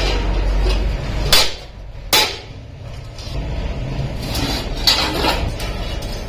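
Metal being struck and clanking, as in hammering and handling iron sheet, with two loud strikes about a second and a half and two seconds in and a lighter one near the end, over a low steady hum.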